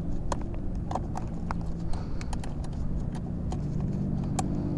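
Scattered light clicks and knocks of parts being handled and fitted, over a steady low engine hum.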